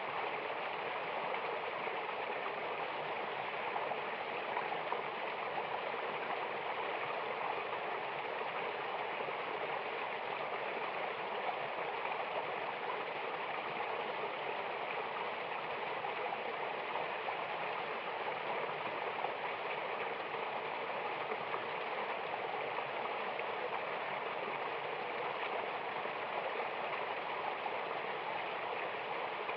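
Mountain waterfall and stream rushing: a steady, unbroken wash of falling and flowing water.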